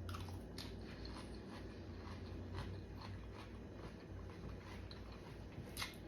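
Faint chewing and mouth sounds of a person eating, with scattered small clicks and one sharper click near the end.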